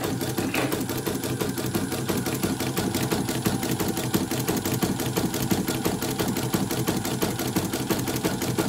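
Elnoss embroidery machine stitching at speed on a test run after its rotary hook was replaced: a rapid, even clatter of needle strokes that holds steady throughout.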